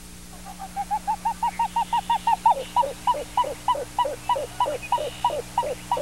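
Pied-billed grebe song. It opens with a quick run of short notes, about seven a second, that grows from faint to loud. About halfway through it changes to a slower run of alternating high and low notes.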